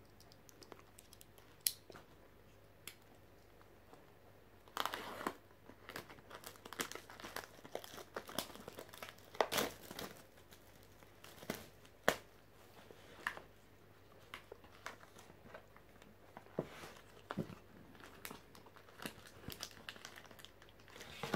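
Plastic wrapping and cardboard of a Pokémon Sword and Shield booster box crinkling and tearing as it is opened by hand, in irregular crackles and tears that start in earnest about five seconds in.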